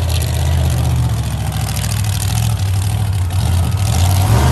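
Monster truck's big engine running loud and low at a slow, steady pace, holding an even pitch while the truck rolls across the dirt arena.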